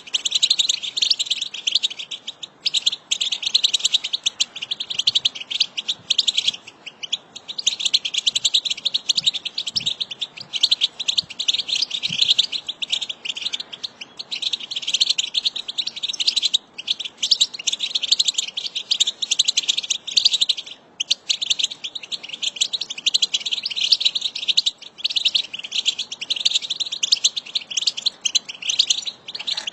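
A group of European goldfinches twittering and chattering together in a dense, continuous stream of rapid high calls, broken by a few brief pauses.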